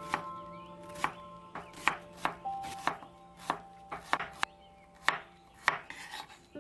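A knife chopping on a cutting board: about a dozen sharp, uneven strokes, roughly two a second, over soft background music with held bell-like notes.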